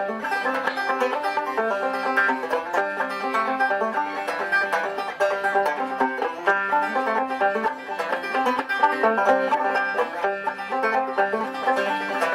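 Five-string banjo with a skin head, played solo with bare fingers: a steady, unbroken run of plucked notes and chords, purely instrumental.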